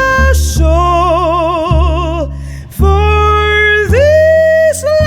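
Female jazz singer holding long wordless notes, several with a wide vibrato, over a bass line, with a brief pause for breath about two and a half seconds in.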